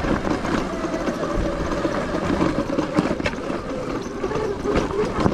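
Sur-Ron electric dirt bike's motor whining steadily under load on a climb, with drivetrain and riding noise and a sharp knock about three seconds in.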